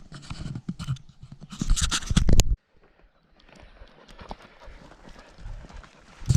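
Footsteps of a hiker climbing over stony ground: irregular knocks and crunches of boots on rock and loose stones, loudest just before the sound cuts off suddenly about two and a half seconds in. Quieter steps follow.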